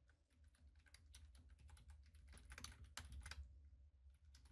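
Faint typing on a computer keyboard: an irregular run of quick key clicks, several a second, over a low steady hum.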